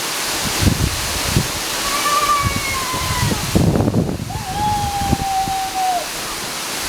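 Waterfall rushing steadily. Over it come two long, held calls from a person's voice, about two seconds in and again just after four seconds.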